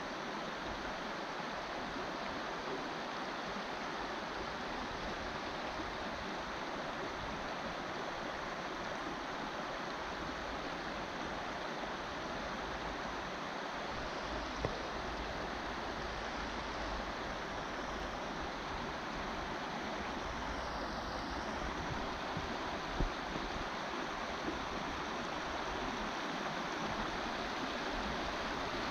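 Shallow river current flowing steadily over gravel, an even rushing of water, with a few brief clicks in the second half.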